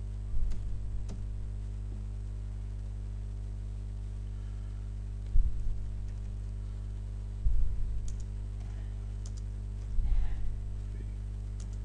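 Computer keyboard keystrokes and mouse clicks, with four louder knocks a few seconds apart and a few faint sharp clicks, over a steady low electrical hum.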